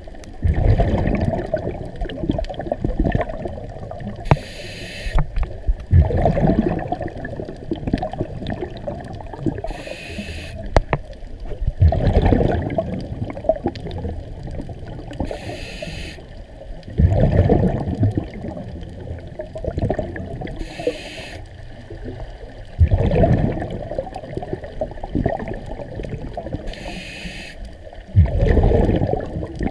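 Scuba diver breathing through a regulator underwater: a short hiss on each inhale, then a louder low rumble of exhaled bubbles, repeating about every six seconds.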